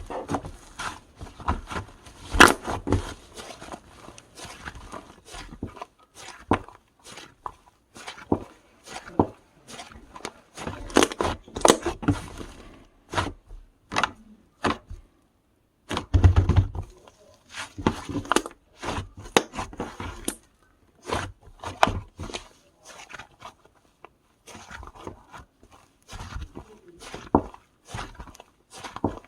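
Slime being squished and pressed by hand, giving irregular sticky clicks and pops in quick runs. After a short pause a little past halfway there is a duller thump.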